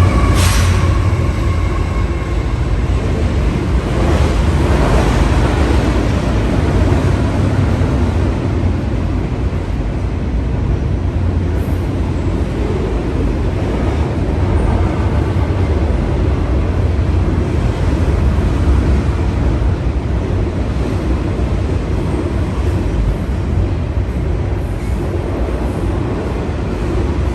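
A train rolling past close by: a steady, loud rumble of wheels on the rails.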